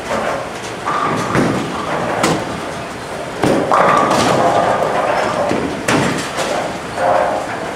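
Bowling alley din: heavy bowling balls thudding and rolling down the lanes and pins clattering, with several knocks. The loudest thud comes a little over three seconds in as a bowler's ball lands on the lane at release.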